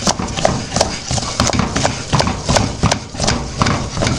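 Wooden spoon beating thick, elastic cheese curd paste in a metal pot, knocking against the pot about three times a second with a wet slapping of the paste between strokes. This is the vigorous mixing that works baking soda into homemade cașcaval to aerate it.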